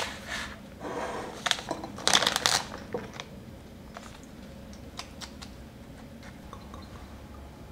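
Plastic pouch of tofu noodles rustling and crinkling in a few bursts as the noodles are tipped into a metal mesh strainer, then a few faint taps as the strainer is shaken to drain them.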